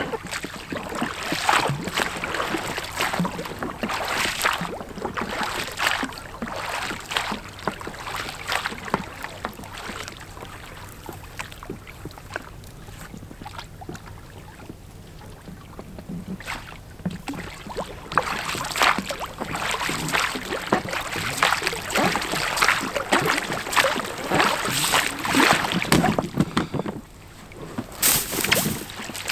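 Oars or a paddle working an inflatable boat through water: a run of splashy strokes about one a second. They ease off to a quieter stretch partway through and then pick up again.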